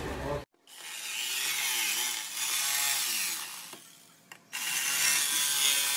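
Electric jigsaw cutting through a body-kit front skirt, opening the hole for an LED light, with a rasping whine whose pitch wavers as the blade works. The cutting stops and drops away about four seconds in, then starts again half a second later.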